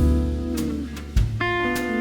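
Background music: a mellow guitar track with plucked notes over a bass line.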